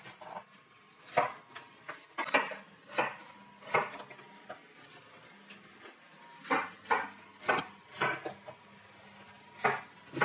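Chef's knife slicing raw potato into rounds on a wooden cutting board, the blade knocking on the board with each cut. The single knocks come every half second to a second, with a pause of about two seconds midway.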